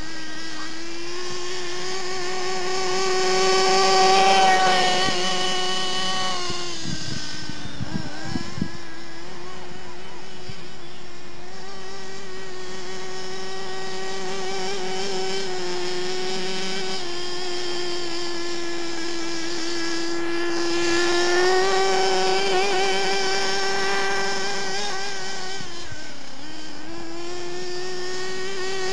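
OFNA Mutilator truggy's new .32 nitro engine running during break-in as the RC car drives around, a high buzzing whine that rises and falls in pitch with the throttle. It swells louder about four seconds in and again past twenty seconds, and the revs dip briefly around eight seconds.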